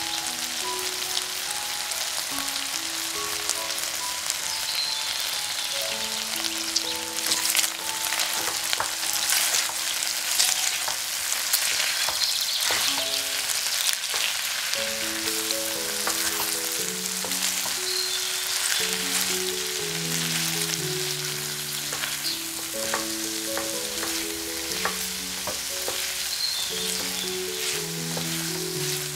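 Food frying and sizzling in a pan, with scattered clicks and scrapes of a utensil stirring it, over background music.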